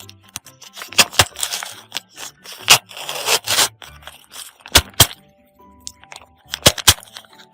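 A series of sharp taps and clicks with bouts of scraping and rustling, from objects being handled during crafting, over soft background music.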